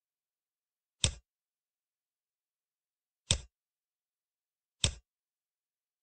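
Three mouse-click sounds in a screen recording, each a single short sharp click: the first about a second in, the next a little over two seconds later, the last about a second and a half after that.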